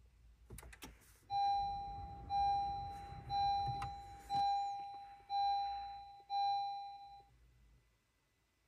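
Honda Civic Type R (FK8) dashboard warning chime sounding six times, about once a second, each a clear ringing tone that fades away, as the ignition is switched on.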